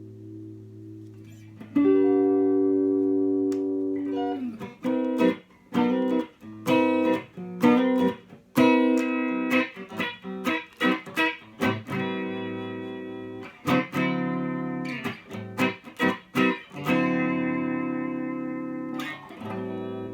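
EL Maya neck-through electric guitar played clean through a small tube amp: a strummed chord left to ring, then a run of short choppy chords, with longer chords held and let ring near the middle and end.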